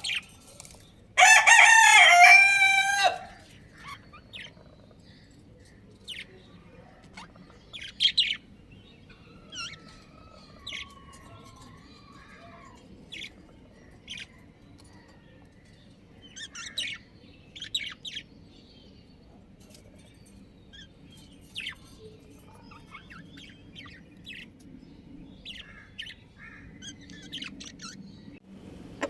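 Budgerigars chirping in short, scattered high calls, with a brief warbling passage in the middle. About a second in comes one loud, drawn-out call lasting about two seconds.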